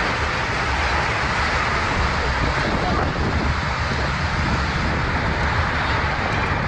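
Steady rushing noise of strong tornado wind buffeting the microphone.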